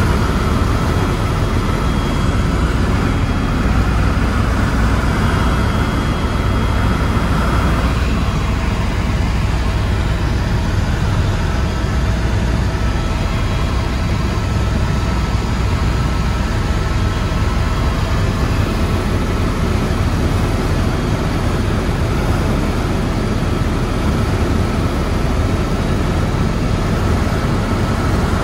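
Tour helicopter's rotor and turbine engine running steadily in cruise, heard from inside the cabin: a deep, even drone with faint steady whining tones above it.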